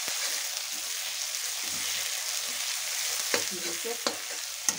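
Chopped onions sizzling in hot mustard oil in a kadhai, a steady frying hiss. They are being stirred, and the utensil clicks sharply against the pan three times in the second half.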